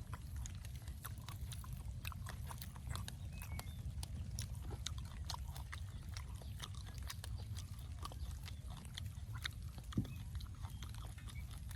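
Close-up mouth noises of someone eating: irregular small clicks and smacks of chewing over a steady low rumble.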